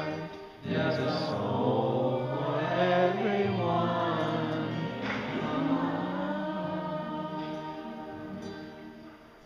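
A group of voices singing together in unison, a gentle Buddhist children's song ending on the line 'for everyone in my heart'; the singing fades out over the last few seconds.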